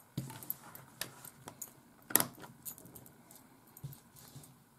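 Light clicks and rattles from a Fluke 12 multimeter and its test leads being handled on the bench, with the sharpest click about two seconds in.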